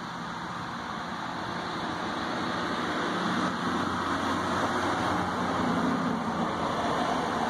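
A motor vehicle going by, its engine and tyre noise growing louder from about two seconds in, with a faint low engine hum in the middle of the stretch.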